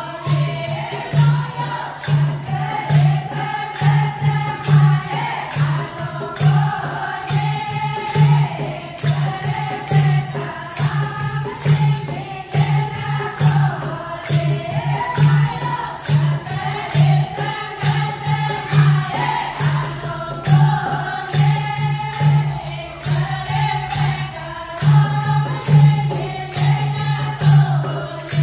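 Group of women singing a Marwadi devotional bhajan together, backed by steady percussion keeping about two beats a second.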